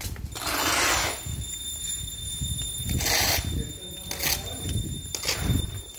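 Metal shovel scraping across a concrete floor as sand and cement mix is shovelled, in separate strokes: a long one about half a second in, another about three seconds in, and shorter ones near the end.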